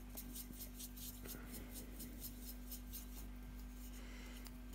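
Paintbrush bristles stirring and scrubbing wet watercolour paint in a palette well: faint, quick scratchy strokes, several a second, growing sparser near the end, over a steady low hum.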